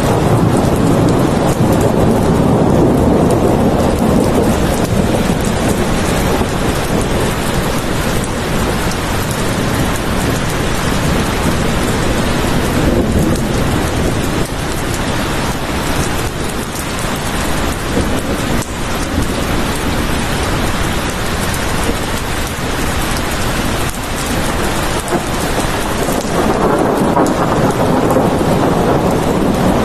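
Steady heavy rain with rolling thunder, the low rumble swelling in the first few seconds and again near the end.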